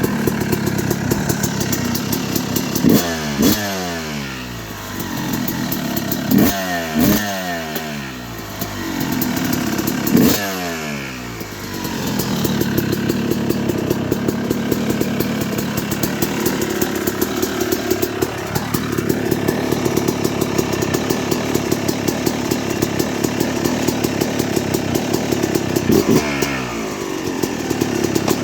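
2006 Yamaha YZ250 two-stroke single-cylinder engine running on its first start after a rebuild with new piston kit, replated cylinder and new main bearings. The throttle is blipped sharply four times in the first ten seconds, the revs falling back after each; about 18 seconds in the revs climb more slowly and hold higher, with another blip near the end.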